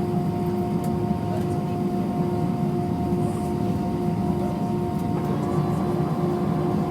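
Steady cabin noise inside a British Airways Airbus A320 on the ground just after landing: its IAE V2500 engines and cabin air make a low, even rumble with a steady hum. A faint higher tone joins about five seconds in.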